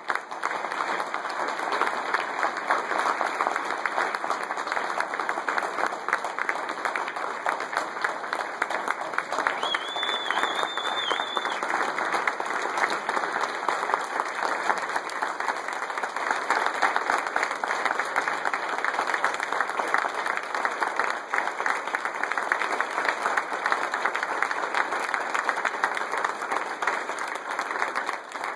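Audience applauding steadily and without a break for nearly half a minute.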